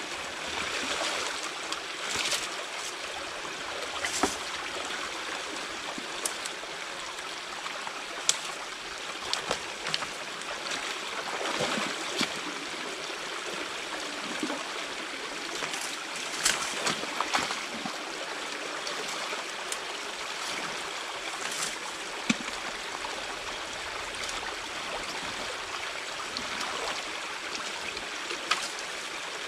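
Water running and trickling steadily through a beaver dam as it is being pulled apart by hand, with short sharp knocks and splashes now and then from the work.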